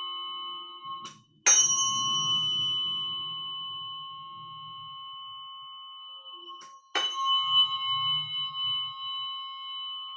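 A small struck metal bell-like instrument is rung twice, about a second and a half in and again about seven seconds in. Each strike rings on slowly with a clear bell tone of several high overtones. A ring already sounding is stopped short about a second in, just before the first strike.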